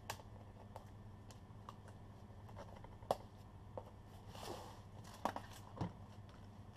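Fingers picking and scratching at a cardboard parcel's packing tape and plastic strapping: scattered sharp clicks and taps, with a short plastic crinkle about four and a half seconds in, over a steady low hum.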